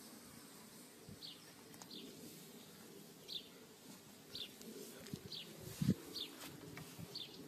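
A bird chirping over and over, one short high chirp roughly every second, with a single low thump a little before the end.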